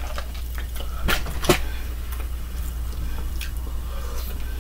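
Eating and drinking sounds: sips from a plastic cup, then a few short, wet mouth clicks as food is eaten by hand, the loudest about a second and a second and a half in, over a steady low hum.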